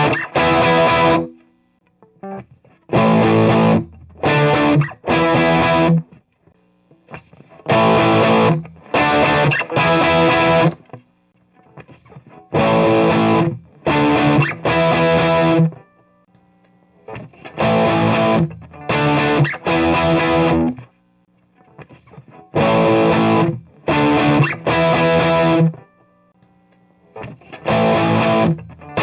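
Overdriven electric guitar chords played through a 50-watt Marshall model 1987 clone valve amp, demonstrating the new selectable bright cap on its high treble channel. A riff of three chord stabs repeats about every five seconds, with short pauses between.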